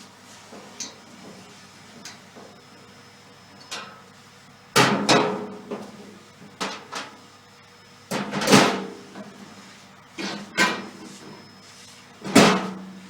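Metal clunks and knocks, about half a dozen, some with a brief ring, as a wheelbarrow wheel and its axle are taken off the frame.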